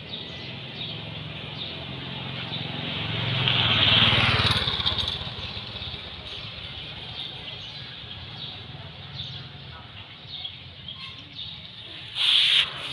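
A motorbike passing on the road, getting louder to a peak about four seconds in and then fading away, with faint bird chirps throughout. A short, loud noise near the end.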